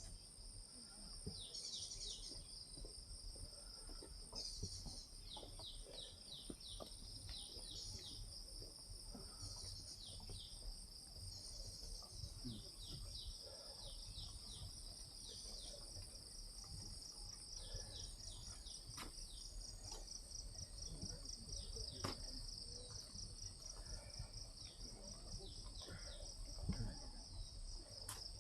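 Steady high-pitched trilling chorus of forest insects, broken every couple of seconds by short falling chirps, with a few faint knocks.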